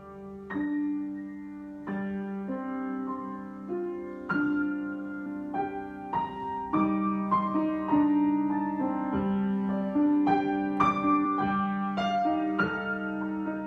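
Solo piano improvisation at an unhurried pace: chords and melody notes struck about every half second to second and left to ring over a sustained low note.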